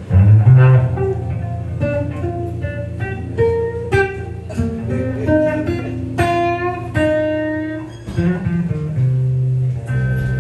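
Solo blues guitar on an amplified archtop electric: picked single notes and short runs over bass notes, ending on a held low note.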